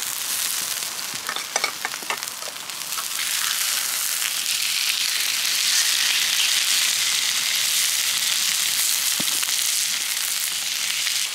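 Steak and garlic yabby tails sizzling in a steady, hissing fry on a hot steel hotplate and frying pan over a campfire, growing louder a few seconds in. There are a few light clicks near the start.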